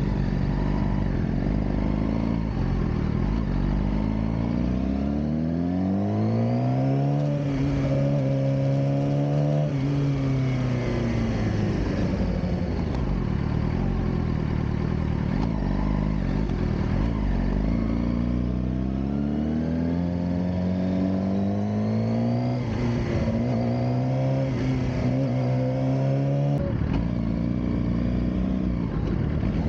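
Suzuki GSX-R600 K7's inline-four engine heard from on the bike while riding. The pitch climbs under acceleration, holds, then drops as the throttle is eased. It climbs again with a few small steps that sound like gear changes, over a steady rush of wind and road noise.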